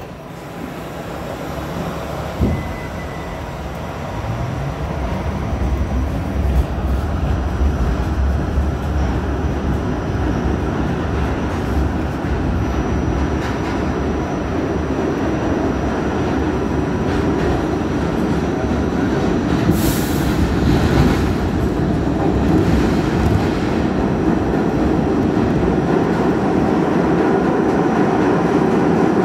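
New York City subway train on the B line pulling out of the station and picking up speed, heard from inside the car. The traction motors whine up in pitch and the wheel-and-track rumble grows steadily louder. A short high hiss comes about twenty seconds in.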